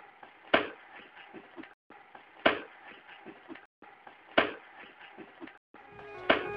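A kick landing on a man's backside, a single sharp thud, repeated four times about two seconds apart as the same short recording loops, with faint scuffing after each. Organ music comes in at the very end.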